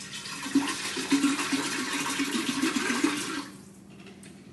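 Orange juice poured in a steady, gurgling stream for a counted pour, stopping about three and a half seconds in.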